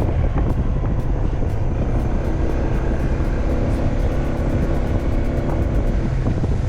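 Motorcycle engine running steadily while riding, under a heavy low wind rumble on the microphone.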